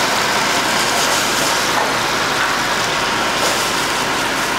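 Shrimp in chile-tomato sauce sizzling steadily in a hot frying pan on a gas burner as white wine is poured in.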